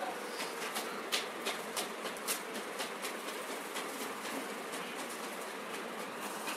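Steady background hiss with a scatter of light clicks, most of them in the first three seconds.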